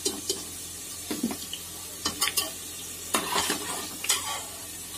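A perforated metal skimmer scrapes and clinks against a pressure-cooker pot in several separate strokes as fried taro pieces are lifted out of the hot oil. Under the strokes the oil sizzles steadily.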